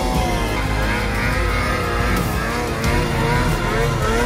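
Arctic Cat snowmobile engine revving up and down as the sled carves through deep powder, its pitch rising and falling again and again, with background music underneath.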